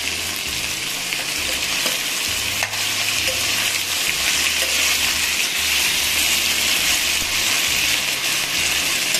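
Mixed vegetables sizzling in hot oil in a stainless steel kadai, stirred with a steel spoon: a steady frying hiss with a light click of the spoon about two and a half seconds in.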